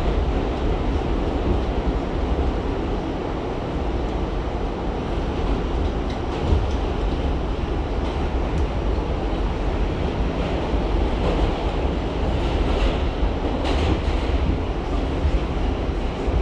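R68 subway train running on the track: a steady low rumble of wheels and car body, with a few faint rattles and clicks.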